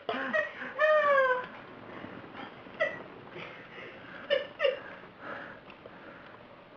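Domestic cat meowing: one long meow falling in pitch about a second in, then a few short calls, the last two close together.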